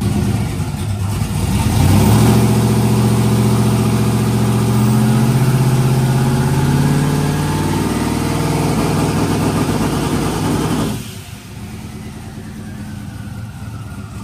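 Twin-turbocharged 5.3-litre LS V8 running. It comes up louder about two seconds in and holds at raised revs whose pitch slowly sinks, then drops suddenly to a quieter, steady idle about eleven seconds in.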